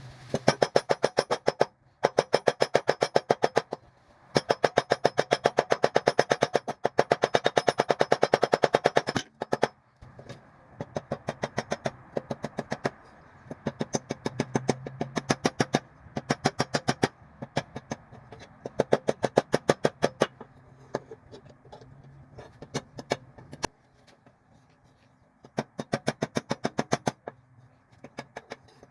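Rapid hammer blows on hot steel rebar against an anvil, about eight strikes a second, in bursts of a few seconds separated by short pauses: the bar being forged into a knife.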